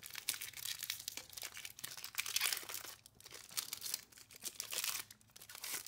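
Crinkling and rustling of a foil booster-pack wrapper and trading cards being handled, with small irregular crackles and clicks.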